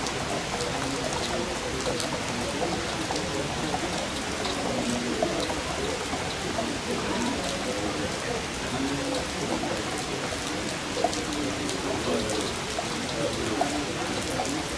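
Steady rain falling, with many separate drops ticking on nearby surfaces.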